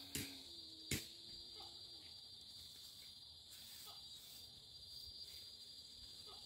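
Steady high-pitched drone of insects in the trees, with two sharp clicks in the first second.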